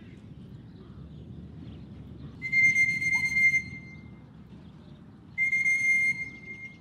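A whistle blown in two long, steady blasts on one high note, each a little over a second, the second beginning about five seconds in. It is the sort of whistle a fancier blows to call racing pigeons circling overhead down to the loft.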